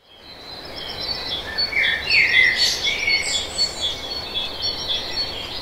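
Birdsong: several birds chirping and trilling over a steady background hiss, fading in at the start.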